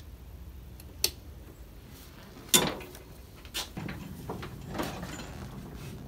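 Handling noises on a zero-turn mower: a sharp click about a second in and a louder clack a second and a half later, then a few knocks and rustling as someone settles onto the mower's seat. No engine runs.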